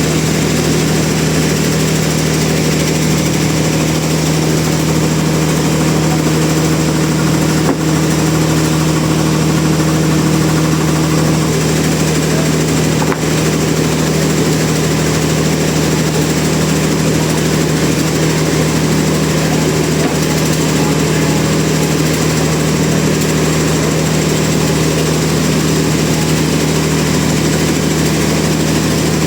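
Sawmill machinery running with a steady, engine-like drone and a strong low hum, unchanging throughout.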